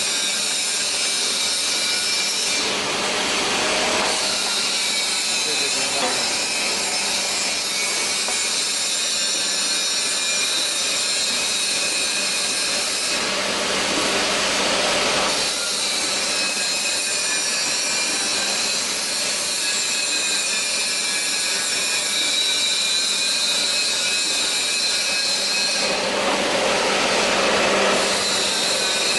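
YX-series horizontal flow-wrapping machine and shrink tunnel running: a steady mechanical drone with a constant hum. A louder rushing noise swells in three times, about every twelve seconds.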